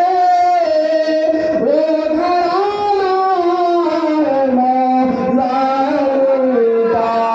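A man chanting in long, held notes that glide and step slowly downward, amplified through a microphone: a sung devotional recitation.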